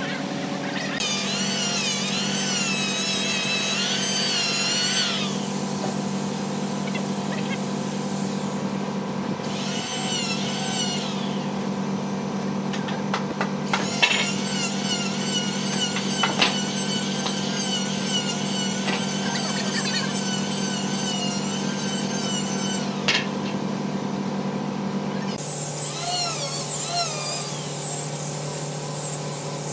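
Handheld electric power tools running on a large hardwood slab, working its edge. The motor pitch wavers up and down as the tools are pushed along the wood, and a few sharp knocks are heard, the loudest about halfway through.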